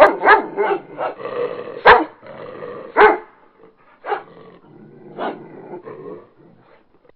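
Dogs growling and barking in a scuffle: a steady growl under quick sharp barks for the first three seconds, then scattered single barks that stop shortly before the end.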